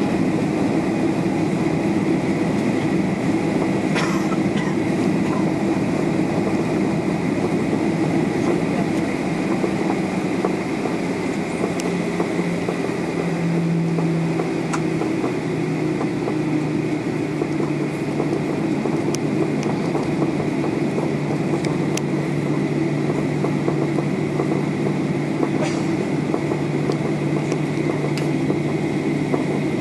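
Cabin noise of a Boeing 737-800 rolling along the ground: its CFM56 jet engines run steadily over the rumble of the wheels, with a scattering of brief clicks and rattles.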